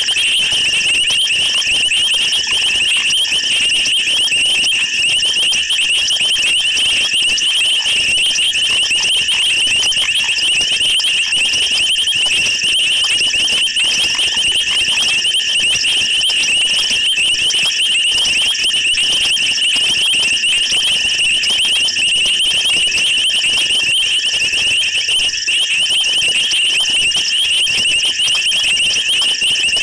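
Loud, dense night chorus of many high-pitched calls merging into one steady, shrill trill.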